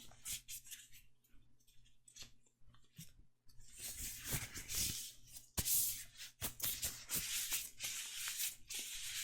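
Disposable medical gloves being pulled onto the hands, with the glove material rustling, rubbing and snapping. It is sparse for the first few seconds and busier from about four seconds in, with the sharpest snap about halfway through.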